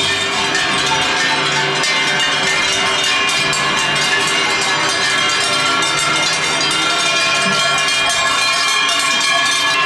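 Large cowbells on a herd of red-and-white cows clanging continuously as the cows walk past: many bells ringing out of step with each other in a dense, loud jangle.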